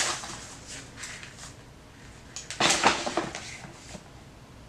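Plastic-wrapped packaging and box contents handled by hand: one short rustling clatter about two and a half seconds in, with a few light taps and rustles around it.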